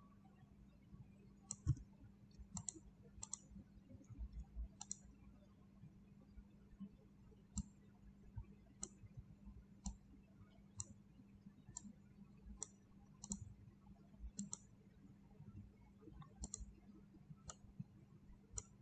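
Computer mouse clicking, single sharp clicks about once a second, over a faint steady low hum.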